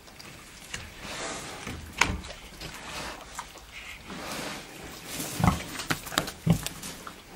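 Wild boar rooting through loose soil with its snout, with a few short, loud sounds in the second half as it comes right up against the camera.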